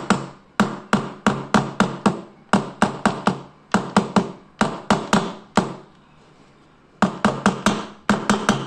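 Plastic beater attachment knocked repeatedly against the rim of a plastic mixing bowl, about four sharp taps a second with a pause of about a second past the middle, shaking off whipped coffee foam stuck to the beater.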